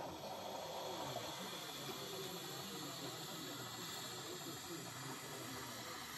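Faint, steady room tone: a hiss with a low, indistinct murmur beneath it.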